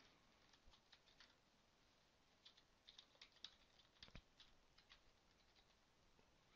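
Faint computer keyboard keystrokes typing a password: a few light taps at first, then a quicker, irregular run of taps in the middle.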